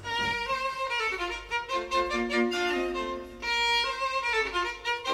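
Background music led by a violin playing a melody of held notes with some slides between them.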